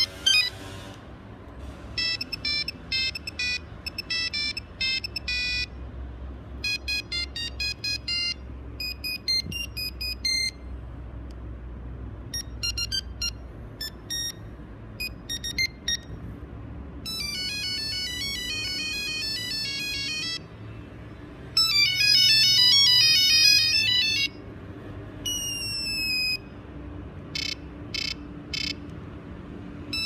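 Nokia 3310 previewing its built-in monophonic ringtones one after another as the list is scrolled: about nine short beeping tunes, each cut off after a second or a few seconds as the next one is selected, one of them a set of quick rising sweeps.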